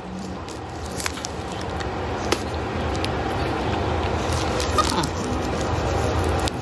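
Plastic bag crinkling and rustling as it is gripped in the teeth and tugged, with a few sharp crackles, growing louder.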